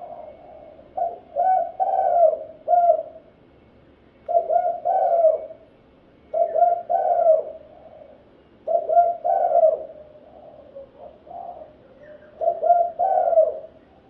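Spotted dove cooing its song: a phrase of several low, rolling coo notes, repeated five times, with a short gap between phrases.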